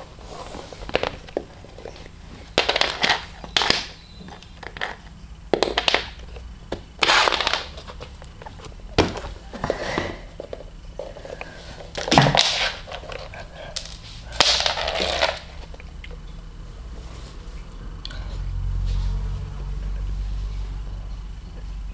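Sellotape crinkling and crackling in short irregular bursts as a cat bats and bites at it. A low rumble sets in near the end.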